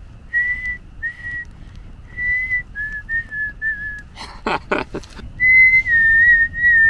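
A person whistling in imitation of a songbird's clear, whistle-like song. It starts as a run of short whistled notes near one pitch, a brief noisy burst comes about four seconds in, and then one long whistle follows with small wavers in pitch.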